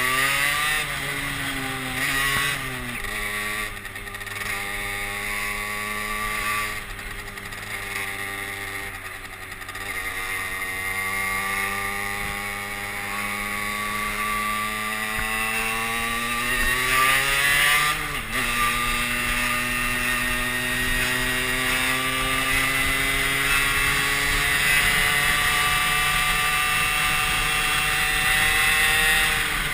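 Derbi Senda moped's engine pulling under acceleration while ridden, its pitch climbing through the revs, dropping at gear changes about three seconds in and again about eighteen seconds in, then climbing slowly again.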